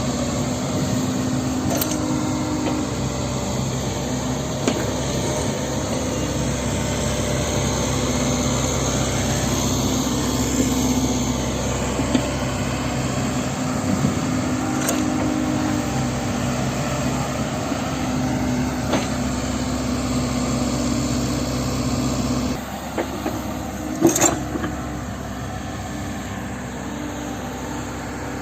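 Heavy diesel machinery running steadily, with a few sharp knocks. The drone drops somewhat in level near the end, and a brief cluster of knocks just after that is the loudest moment.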